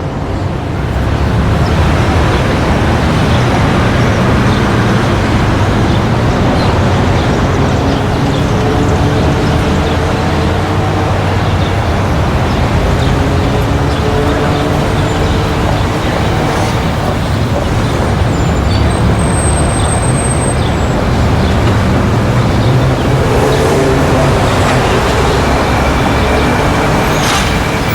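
City street traffic: a steady, dense din of cars and buses passing, with engines running. A brief high squeak about two-thirds of the way through.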